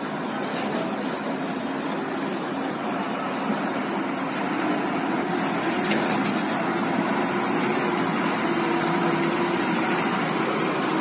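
Diesel truck and car engines running as vehicles drive off a roll-on/roll-off ferry, a steady mass of engine noise, with one sharp click about six seconds in.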